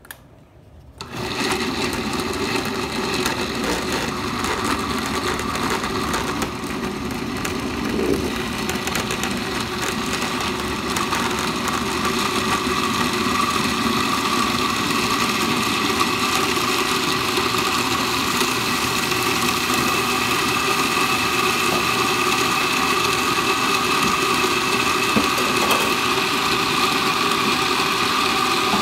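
Countertop blender with a glass jar switching on about a second in and running steadily at high speed, puréeing tomatillos, cilantro and chicken stock into salsa. Its motor hum grows a little louder toward the end.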